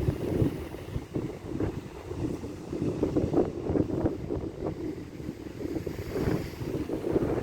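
Sea waves washing in, heavily mixed with wind noise on the microphone, a low, uneven rumble that surges and eases irregularly.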